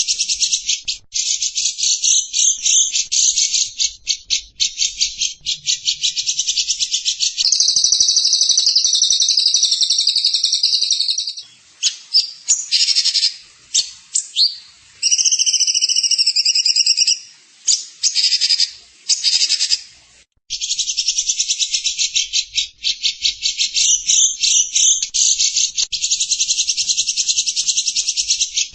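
Small songbird singing high-pitched, rapid buzzing trills. About eight seconds in it switches to a steadier warbling phrase, then to broken chirps and short twitters. Near the twenty-second mark it breaks off briefly, then the fast trills resume.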